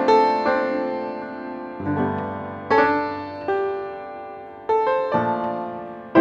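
Background piano music: notes and chords struck roughly once a second, each ringing and fading away.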